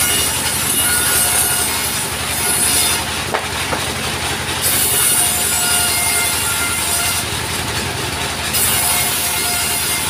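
Small sawmill's engine running steadily while its saw cuts through a log, a high hiss of cutting coming in three spells of two to three seconds each.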